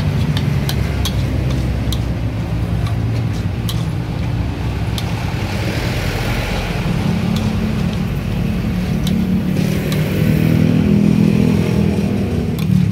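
A metal spatula clinking and scraping against a steel wok as noodles are stir-fried, in irregular sharp strokes, over a steady low rumble.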